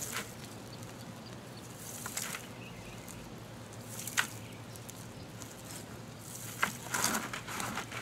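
Handfuls of loose garden soil dropped into a plastic bucket and hands scraping in it, mixing the soil into fertilizer: a few soft, scattered patters and scrapes, busier near the end.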